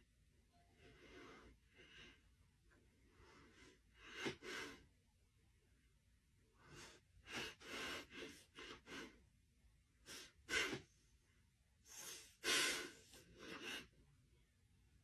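Faint, close-up breathing and sniffing from a dog and a man pressed nose to nose: short breathy sniffs and snorts in irregular bunches, the strongest about four, ten and twelve seconds in.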